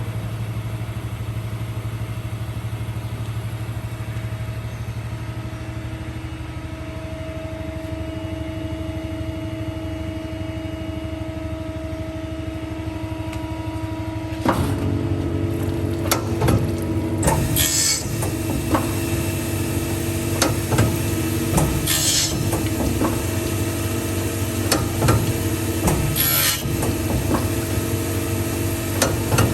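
Automatic CNC saw-blade grinding machine running, sharpening the carbide teeth of a circular saw blade: a steady motor hum, then about halfway through it grows louder with repeated clicks and knocks and brief high hissing bursts every four to five seconds.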